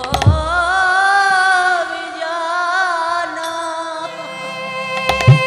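A woman sings one long held note with a wavering vibrato in Bengali kirtan style, over steady held accompaniment tones. Khol drum strokes fall at the start and again near the end.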